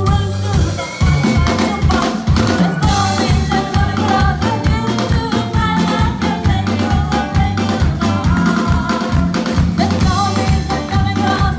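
Live band playing an upbeat song: women singing over electric guitars and a steady drum beat.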